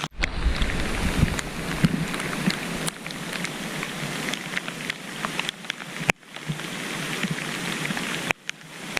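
Rain and wind noise on the microphone, with scattered sharp ticks and a low rumble of wind buffeting in the first second or so. The sound cuts off abruptly twice, about six seconds in and again near the end.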